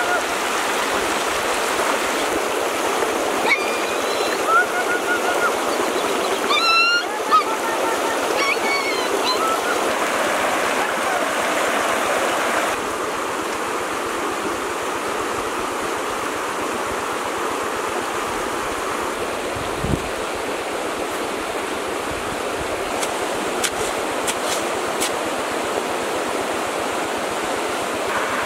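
Shallow stream rushing over rocks, a steady water noise, with a few short high calls in the first nine seconds or so. The water sound drops a little about thirteen seconds in.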